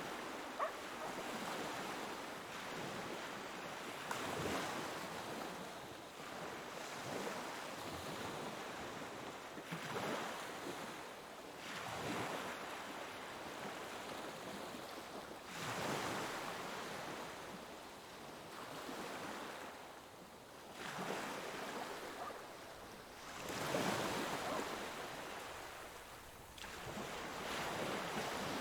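Ocean waves breaking on a shore: a steady wash of surf that swells and subsides, with a new wave surging in every three to six seconds.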